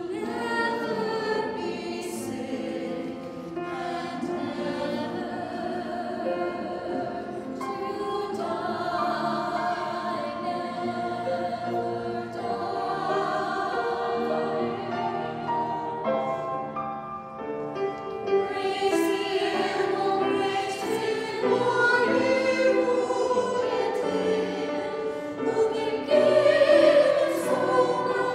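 Small women's choir singing a hymn together in sustained sung lines, with a short breath-pause about two-thirds of the way through.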